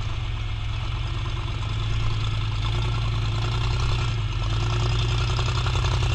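Off-road vehicle's engine running at a steady idle, with an even low hum.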